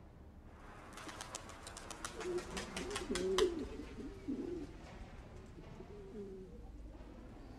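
Pigeons cooing in a few wavering low calls, with a rapid run of sharp clicks in the first half.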